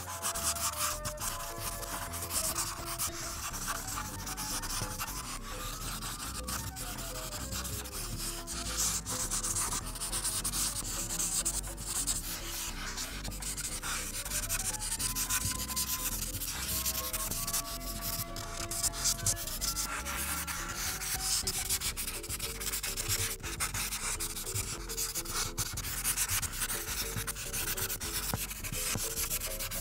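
Felt-tip art marker rubbing over paper in repeated back-and-forth strokes as a large area is coloured in.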